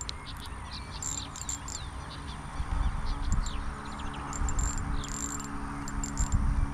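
Small birds chirping in many short, quick calls, over an insect's high, thin buzz that comes and goes and a faint low hum.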